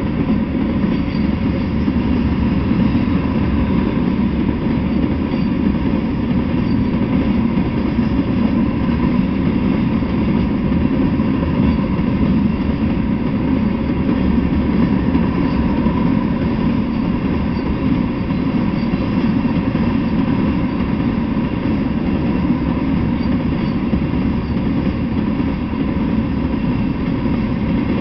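A freight train of covered hopper cars rolling past, its wheels on the rails making a steady, unbroken noise.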